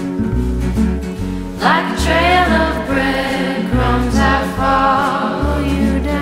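Background song: a singing voice over a bass line and steady music.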